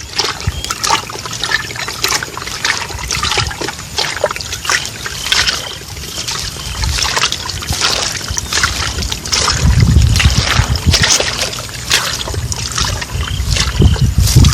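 Water trickling and splashing in irregular bursts as eel traps are handled, with scattered knocks and a low rumble about ten seconds in.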